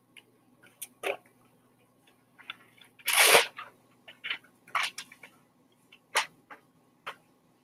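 Scattered sharp clicks and knocks in a small room, with one louder, longer burst of noise about three seconds in.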